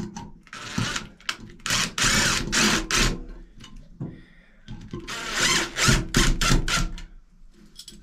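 DeWalt cordless drill/driver run in short bursts, driving screws through a shower valve trim plate: one brief pulse, then a cluster of pulses about two seconds in and another cluster about five to seven seconds in.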